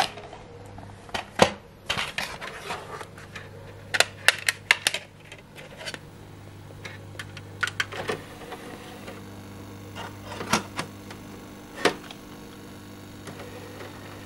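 Plastic DVD cases clicking and clattering as a DVD is pulled from a shelf, its case snapped open and the disc handled: a string of sharp clicks, with a quick cluster about four seconds in, over a low steady hum.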